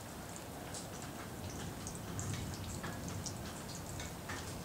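Rainwater dripping and pattering in irregular small taps over a low, steady rumble.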